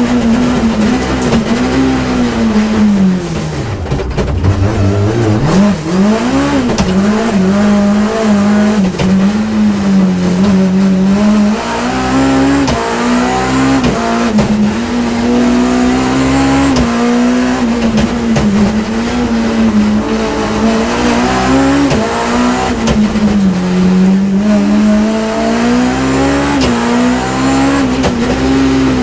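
BMW E30 M3's four-cylinder engine heard inside the cabin, held at high revs near 7,500 rpm under hard throttle. About four seconds in, the revs fall sharply and climb back up, with a few shorter dips and recoveries later on.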